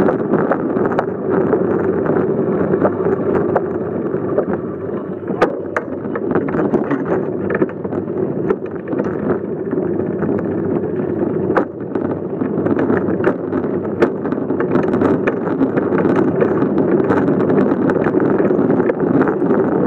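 Wind rushing over the microphone of a phone mounted on a moving bicycle, with the rumble of the ride along the street and frequent small clicks and rattles from the bike.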